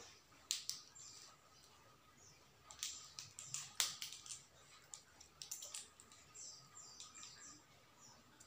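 Faint scattered clicks and crackles of food being broken apart and pressed by hand, with short high chirps falling in pitch, like small birds, heard several times in the background.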